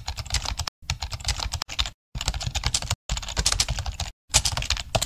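Typing sound effect: rapid key clicks in about six quick runs with brief pauses between, timed to text being typed out on screen.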